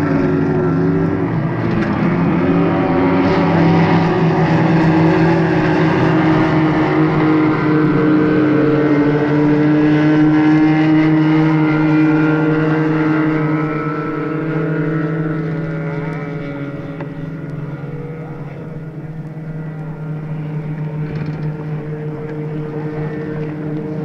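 Racing hydroplane's engine running at speed across water: a steady drone of several tones, wavering in pitch in the first couple of seconds. It is loudest through the first half, fades somewhat past the middle and picks up a little near the end. Heard from an old 78 rpm disc recording, with a dull top end.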